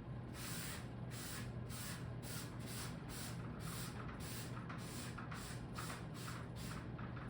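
An eraser rubbing back and forth across a writing board, wiping off a worked value, in quick strokes of about three a second.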